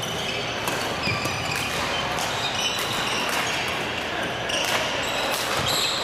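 Badminton doubles rally: sharp racket strikes on the shuttlecock at irregular intervals, with short squeaks of shoes on the court mats in between.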